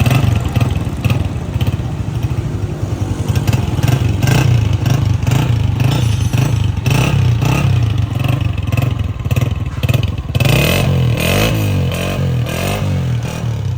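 Honda CG125's air-cooled single-cylinder four-stroke engine running, with a mechanical clatter; from about ten seconds in it is revved up and down several times in quick blips.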